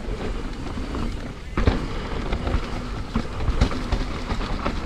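Mountain bike ridden fast down a dirt trail: tyres rumbling over dirt and roots and the bike rattling, with sharp knocks from bumps, the loudest about a second and a half in.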